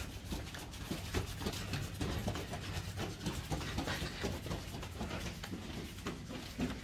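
Soft, irregular footsteps on a carpeted hallway with some rustling, over a steady low hum.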